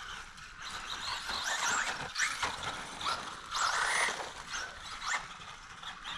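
Brushless electric motor of a Traxxas Bandit RC buggy (Velineon VXL-3s system) whining in repeated rising and falling sweeps as the throttle is worked, over a steady noisy haze.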